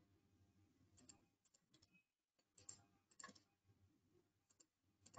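Faint computer mouse clicks, about ten scattered single clicks against near silence.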